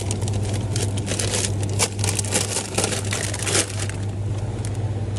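Plastic frozen-food bags of berries crinkling and rustling as they are handled and pulled off a freezer shelf, in a quick run of crackles that thins out near the end. A steady low hum runs underneath.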